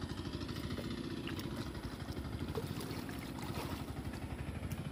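A small engine running steadily with a fast, even putter, with a few faint clicks over it.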